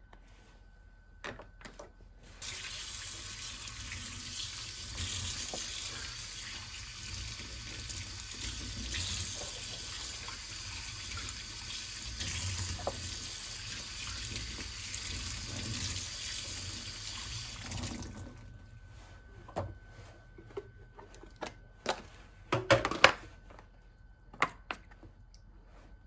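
Tap running into a sink, a steady rush of water for about fifteen seconds before it is turned off. A series of knocks and clatters follows, the loudest near the end.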